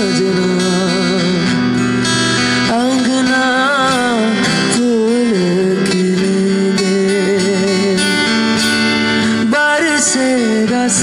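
A male singer sings a slow melody of long held notes, some of them wavering, accompanied by a strummed acoustic guitar.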